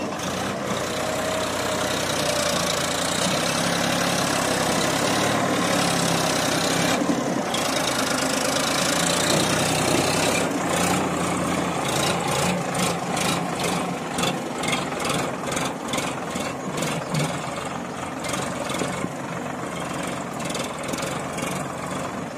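Sonalika DI 745 III tractor's three-cylinder diesel engine running hard as it hauls a heavily loaded soil trailer over rough ground. About halfway through, the sound starts to pulse at roughly two beats a second.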